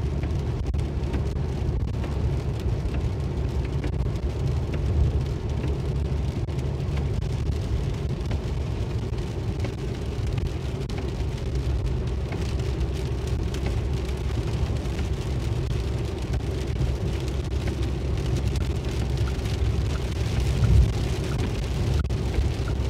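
Steady low rumble of a car driving on a rain-soaked highway, heard from inside the cabin, with rain on the windscreen.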